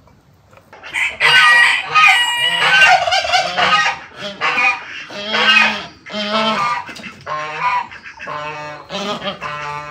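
Domestic geese honking loudly. A run of honks starts about a second in and continues as separate calls, each lasting about half a second, repeated every second or so.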